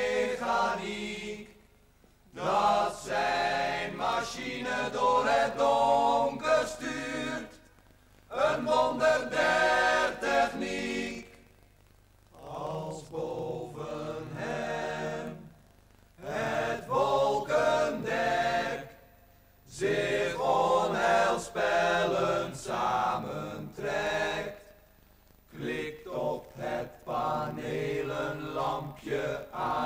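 A group of about ten men singing together, unaccompanied, in phrases of a few seconds broken by short pauses.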